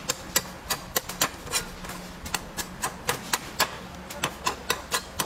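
A cleaver chopping and shaving the husk off a young green coconut against a wooden chopping block, in quick sharp chops about three a second.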